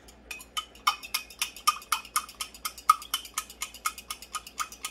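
A metal fork whisking a cornstarch slurry in a glass measuring cup, clinking against the glass in a quick, steady rhythm of about four strikes a second.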